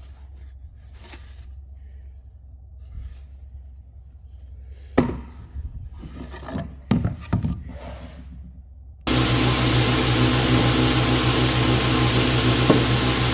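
Wood being handled on a bench: a few knocks and rubbing scrapes, one sharp knock about five seconds in. About nine seconds in, a woodworking power tool starts up abruptly and runs steadily with a low hum.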